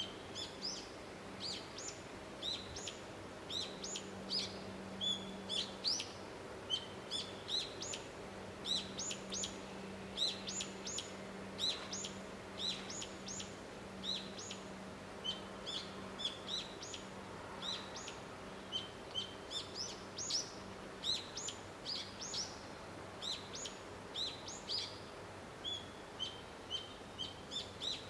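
Small birds chirping: many short, high chirps, several a second, with no let-up, over a faint steady low hum.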